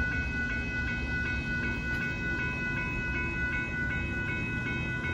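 Railroad grade-crossing bell ringing steadily, about three strikes a second, over the low rumble of a passing Union Pacific freight train.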